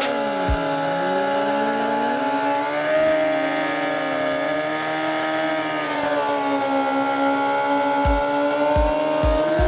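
Sport motorcycle engines held at high revs during burnouts on the line, a steady high engine note that rises and falls a little. A few dull low thumps near the end.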